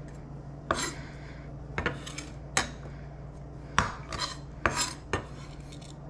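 Chef's knife knocking and scraping on a wooden cutting board while diced onion is gathered and moved, about eight irregular knocks and short scrapes.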